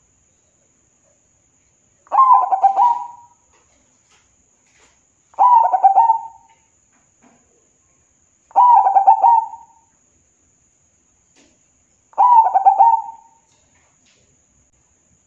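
Zebra dove (perkutut) cooing: four rolling, quick-pulsed coo phrases, each about a second long, roughly every three and a half seconds.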